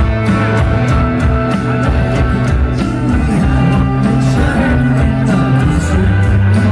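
A rock band playing live, heavy in the bass, with electric guitar, steady drum hits and a singing voice.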